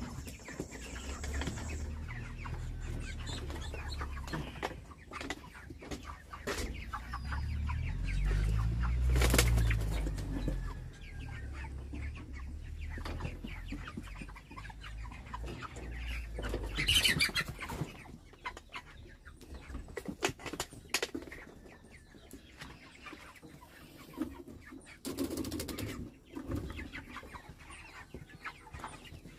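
Chickens in a coop flapping their wings and clucking, mixed with scattered knocks and rattles of wire and rope being handled as the feeding pans are hoisted up. A low rumble runs through the first half.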